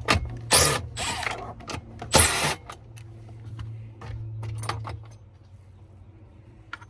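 Sharp clicks and metallic rattling of hand tools and parts being handled while working on a truck's dashboard, with two louder scraping bursts about half a second and two seconds in, over a low steady hum that fades near the end.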